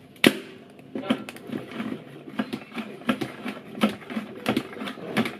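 Clear plastic salad spinner being worked by hand, drying washed lettuce. There is a sharp plastic click about a quarter second in, then repeated knocking and rattling about twice a second.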